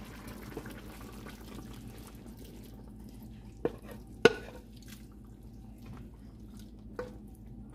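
Seasoned water, cut potato and vegetables scraped from a bowl into a pot of chicken with a wooden spoon: soft pouring and dripping, with three sharp knocks against the pot rim, the loudest about four seconds in.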